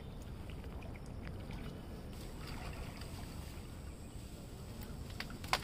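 Water sloshing and swishing around people wading waist-deep in a weedy pond, with a few small knocks and one sharp click near the end.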